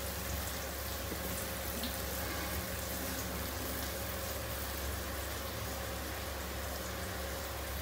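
Hand stirring and squeezing puffed rice soaked in water in a steel bowl: a steady, soft wet rustle and swish, over a constant low hum.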